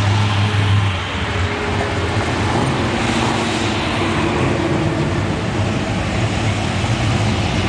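Classic cars driving slowly past one after another, engines running over steady road noise. A strong low engine note from a passing car fades about a second in.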